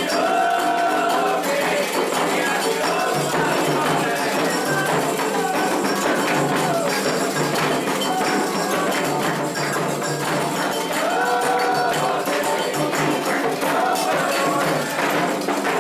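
Candomblé ritual drumming for Oxossi: atabaque hand drums and a metal bell keep a steady, dense rhythm, with voices singing over it in places.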